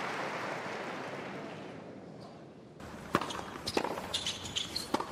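Crowd applause dying away over the first couple of seconds. Then, after a cut, a tennis rally: sharp pops of the ball off racket strings and court, three main hits about a second apart, with brief high squeaks between them.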